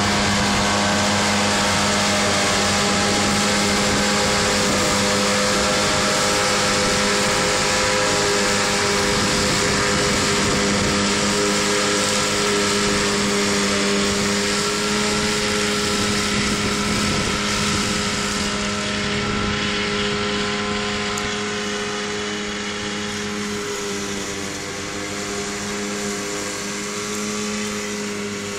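New Holland tractor's diesel engine under load, driving a tractor-mounted straw chopper through stubble, running with a steady pitched drone. The sound slowly grows quieter from about halfway through as the rig moves away.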